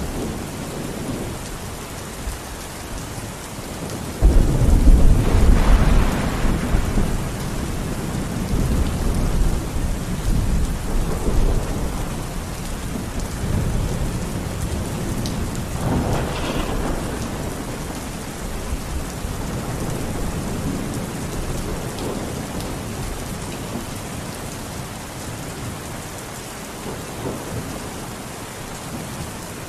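Steady rain falling, with thunder: a sudden loud rumble breaks in about four seconds in and rolls on for a few seconds, and a weaker rumble follows about halfway through.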